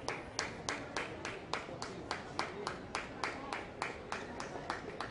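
Hands clapping in a steady, even rhythm, about three claps a second, over the murmur of an indoor crowd.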